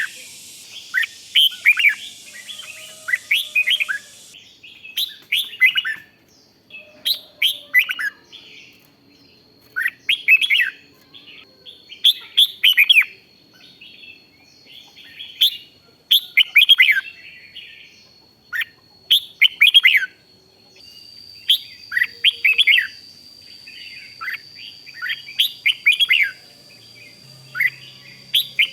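Red-whiskered bulbul song: short, bright, warbled phrases repeated every second or two.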